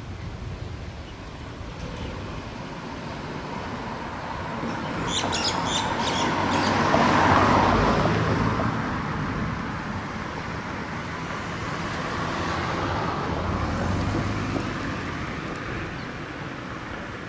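Street traffic: a passing car swells to its loudest about halfway through and fades away, and a second, quieter vehicle swells and fades later. A few short, high bird chirps come about a third of the way in.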